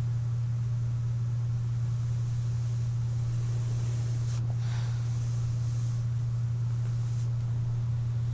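Steady low hum with a faint hiss of air from a CPAP machine running on a sleeper, with one faint breath about four and a half seconds in.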